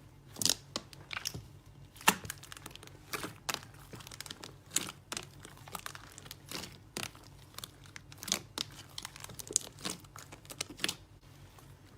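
Slime being squeezed and poked by hand, giving irregular sharp pops and crackles, several a second, over a faint low hum.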